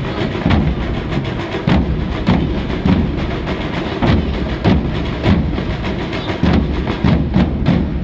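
A drum group playing Portuguese bombos (large bass drums) and smaller side drums with sticks: heavy bass-drum beats land about every 0.6 seconds under quick, dense side-drum strokes.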